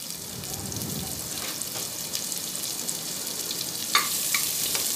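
Chopped onions sizzling in hot oil in a pressure cooker pan, a steady frying hiss. About four seconds in a spatula stirs them, knocking against the metal pot a couple of times.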